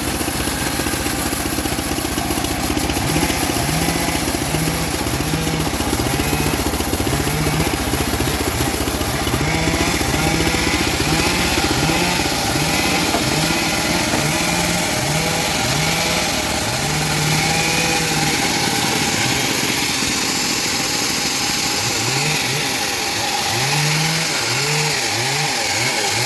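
Engine of a homemade bandsaw sawmill running steadily while the blade rips through a teak log, its pitch wavering in short rises and dips under the changing load.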